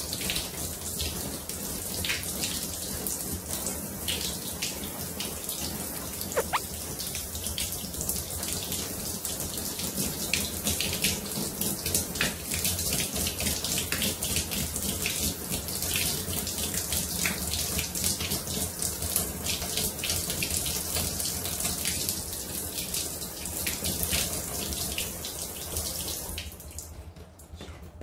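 Handheld shower, fed through an ultrafine-nanobubble adapter, spraying water onto hands rubbing under it, with a steady hiss and small splashes. The flow cuts off near the end.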